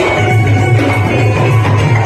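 Live band music played through the PA, with octapad percussion hits keeping a steady beat over a heavy bass.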